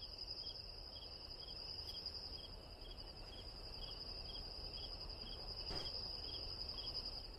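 Crickets chirping: a continuous high trill with a second, lower chirp repeating about two and a half times a second.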